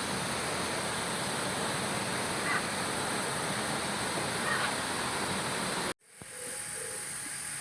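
Steady rushing noise, with a couple of faint bird calls through it. About six seconds in it cuts off suddenly, and a quieter stretch follows with short chirping bird calls.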